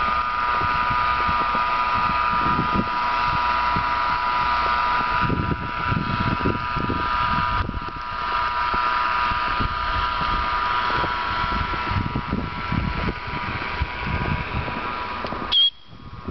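Blizzard wind buffeting the microphone in an irregular low rumble, over a steady high hum. A short sharp click near the end.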